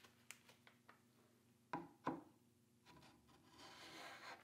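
Paint scraper scraping stripper-softened paint along a wooden chair arm, starting quietly about three seconds in and building. It is preceded by a few light ticks and two sharp knocks.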